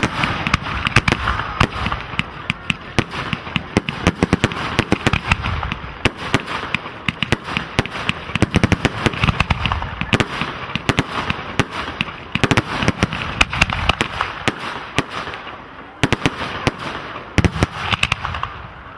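Fireworks display: a dense, continuous barrage of sharp bangs and crackles, thinning slightly near the end.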